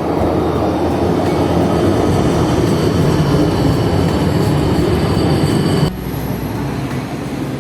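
Steady, loud rumble of a moving vehicle, train-like, which drops abruptly to a quieter rumble about six seconds in.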